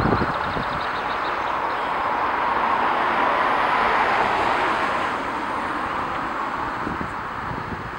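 Road traffic: the steady rush of car tyres and engines on the road. It swells as a car passes near the middle, then eases off.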